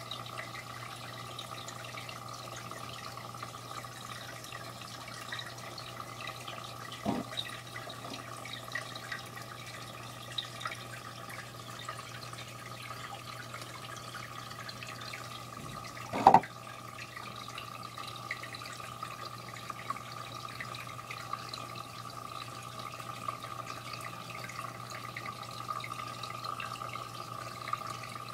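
Aquarium water trickling and dripping over a steady low hum. Two short knocks come through, one about a quarter of the way in and a louder one just past halfway.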